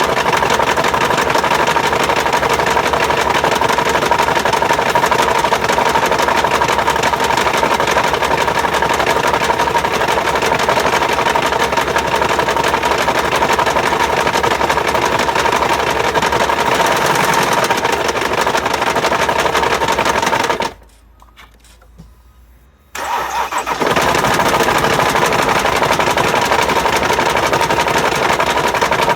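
2012 Jeep Grand Cherokee's 3.0-litre V6 turbodiesel running with the engine noise of a damaged crankshaft. About twenty seconds in it cuts out, and a couple of seconds later it starts and runs again.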